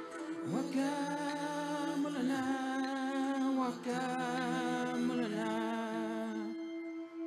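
A man singing wordless, held notes with a wavering vibrato, sliding from one note to the next, over a steady electronic drone. Near the end the voice stops and the drone hangs on alone.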